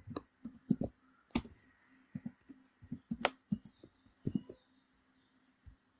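Typing on a computer keyboard: a dozen or so uneven keystroke clicks with short pauses, the two sharpest about a second and a half and three seconds in, over a faint steady hum.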